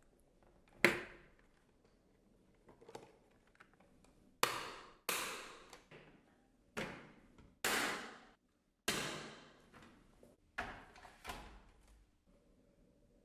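A series of about nine sharp knocks at irregular intervals, each dying away within about a second.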